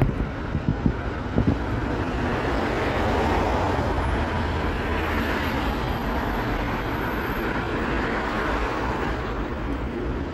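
Road and rail traffic noise: a steady low rumble with a broad hiss that swells over several seconds in the middle and then eases, like a vehicle passing, with a faint high whine partway through.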